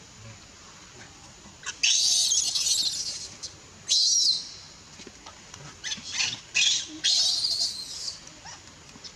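Baby macaque crying in a run of shrill, high-pitched screams: a long one about two seconds in, a short one near four seconds, then several more from about six to eight seconds. It is a distress cry from a baby being pushed away from nursing by its mother.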